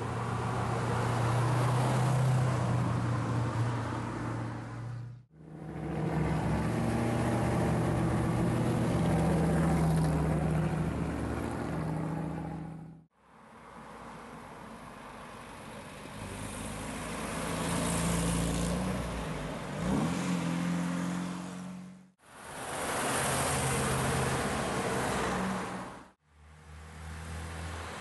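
A run of 1960s sports cars passing one at a time through a bend, among them a Ford Cobra, an MGB and an Austin-Healey 3000 MkIII. Each engine is heard running under way as it approaches. The sound cuts off sharply between one car and the next, and one engine rises in pitch as it accelerates.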